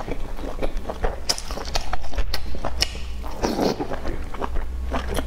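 Close-up eating sounds: wet chewing with irregular lip smacks and mouth clicks as a piece of sauce-coated food is drawn in and chewed.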